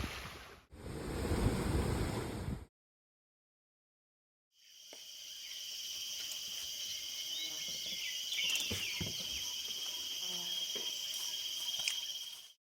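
Outdoor wildlife ambience: a steady high-pitched drone with scattered bird chirps and clicks. It is preceded by a couple of seconds of wind rumble on the microphone that cuts off abruptly, then a short silence.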